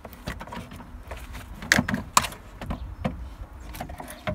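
Heavy 12-volt AGM car battery being handled into its tray: a run of knocks and clunks of the battery case against the mount. The two loudest come close together about two seconds in.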